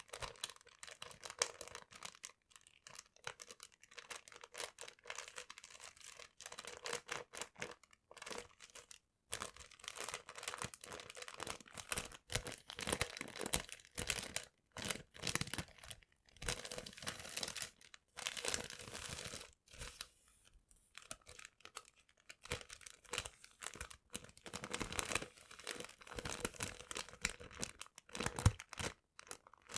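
Paper being crumpled and crinkled, in irregular spurts of dense crackling and rustling with short pauses between them.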